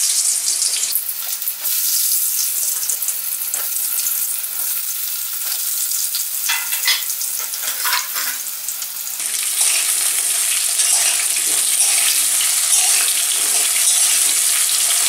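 Halved potatoes frying in hot mustard oil in a kadai: a steady crackling sizzle, which grows louder about nine seconds in. Near the end a metal spatula stirs and turns the potatoes in the pan.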